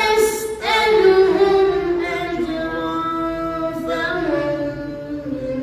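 A single voice chanting Quranic recitation in long, drawn-out melodic notes, stepping down in pitch, with a short break about half a second in.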